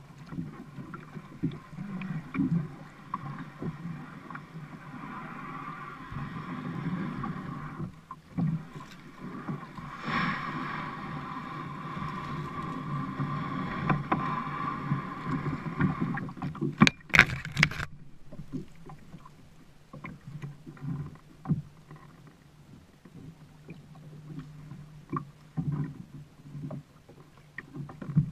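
A Sun Dolphin kayak being paddled, with water sloshing along the hull. A few sharp knocks come about two-thirds of the way through, after which the water sound is quieter.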